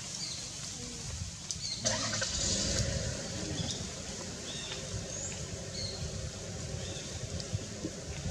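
Outdoor ambience: a low steady rumble under small birds chirping now and then with short high notes, and a brief rushing noise that lasts about a second, starting about two seconds in.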